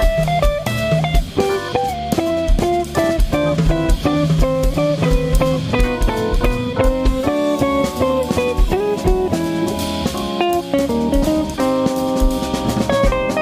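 Jazz trio of electric guitar, organ and drum kit playing, the guitar running quick single-note lines over the organ and drums.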